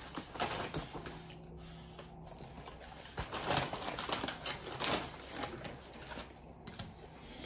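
Paper takeout bag rustling and crinkling as a hand rummages inside it, in short irregular crackles.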